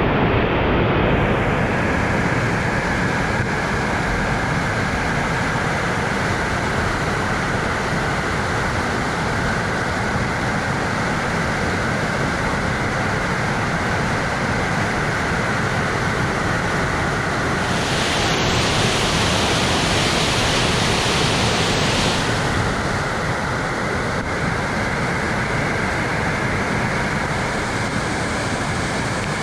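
Rushing water of the Jasień river running high after rain, a loud, steady hiss. About eighteen seconds in, a brighter hiss swells for some four seconds, then drops back.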